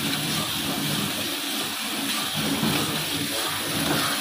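Freshly roasted coffee beans being churned around a drum roaster's cooling tray by its rotating stirring arms: a steady rustling hiss of beans and running machinery.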